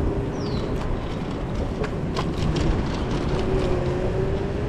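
Riding an electric kick scooter along a road: steady wind and road rumble with a faint steady whine that rises slightly in pitch in the second half, and a few light clicks about two seconds in.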